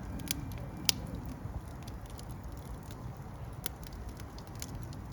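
Fire crackling, with scattered sharp pops over a low steady rumble; the loudest pop comes about a second in.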